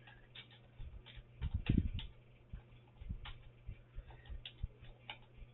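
Scattered light clicks and ticks at irregular intervals, with a soft low thump about a second and a half in, over a steady low hum.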